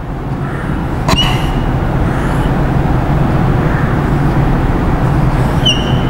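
Steady low engine rumble with hiss, growing slightly louder, and a short high squeak of a marker on a whiteboard about a second in and again near the end.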